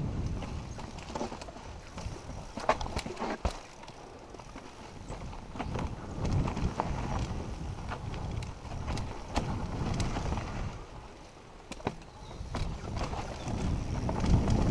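Mountain bike descending a rocky trail: tyres rolling and crunching over dirt and stones, with scattered sharp clacks from the bike as it hits rocks, over a low rumble of wind on the microphone that rises and falls with speed.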